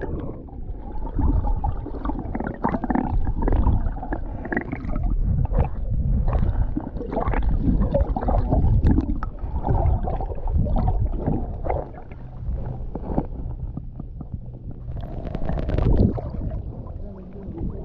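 Water splashing and gurgling around an inflatable kayak as it is paddled, in irregular strokes with a low rumble underneath.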